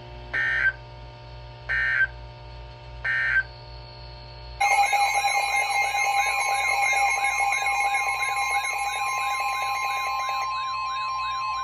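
Emergency Alert System weather-radio alert: three short screechy bursts of the digital header data, about 1.3 s apart, then about four and a half seconds in a loud alert tone starts, with a steady tone and a warble rising and falling about two to three times a second. It signals a new severe thunderstorm warning about to be read. A low hum runs underneath.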